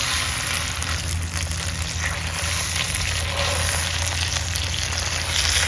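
Chicken searing in a hot cast iron skillet, a steady sizzle with small crackles that grows louder near the end.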